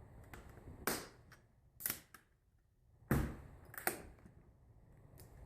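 A few sharp plastic clicks and knocks from a laptop being handled and its parts pressed back into place: four in all, the loudest about three seconds in.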